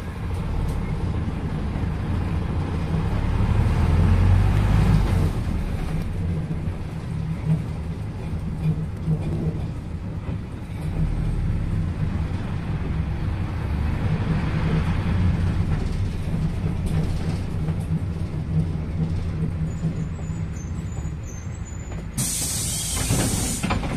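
PAZ-320402-05 city bus's diesel engine running as the bus drives, heard from inside the cabin, louder for a couple of seconds about four seconds in. Near the end, a loud hiss of compressed air from the bus's air brakes or pneumatics lasting about a second and a half.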